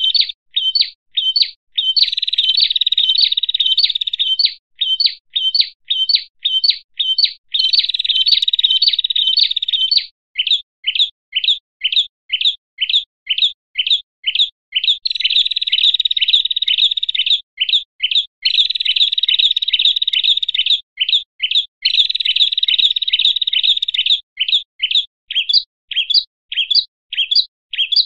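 Small songbirds' noisy, agitated chattering, of the kind played as a bird-lure call. Runs of harsh, rapid trilling alternate with series of sharp chip notes at about three a second.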